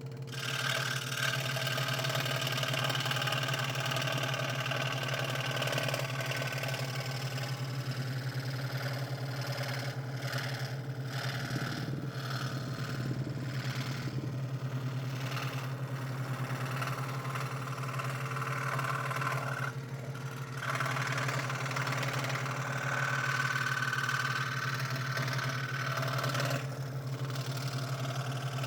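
Scroll saw running and cutting 3 mm craft plywood: a steady motor hum under a rasping cutting noise that rises and falls as the wood is fed through the blade.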